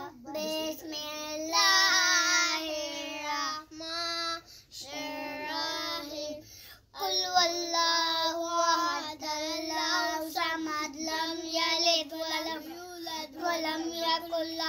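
A child singing: sung phrases with long, wavering held notes, broken by short pauses.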